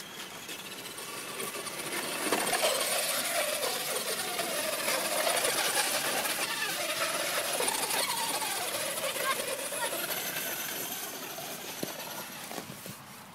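Traxxas radio-controlled truck's motor and drivetrain whining as it drives over ice, the pitch rising and falling with its speed. It builds up over the first couple of seconds and fades away near the end.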